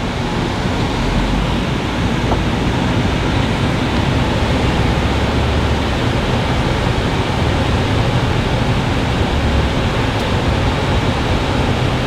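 Coach bus driving, heard from inside the cabin: a steady rumble and hiss of engine and tyre noise on a snowy road.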